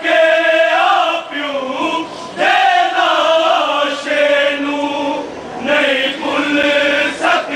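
Men's voices chanting a Muharram mourning lament (noha) in sung phrases of a second or two, with short breaks between them.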